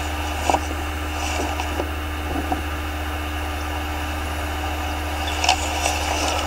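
A steady low mechanical hum with a faint steady tone above it, and a couple of light clicks, one about half a second in and one near the end.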